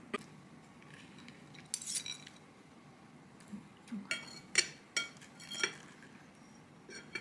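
Metal fork and knife clinking and scraping against a ceramic bowl while cutting into a soft peach dessert: about half a dozen short, sharp clinks, several close together between about four and six seconds in.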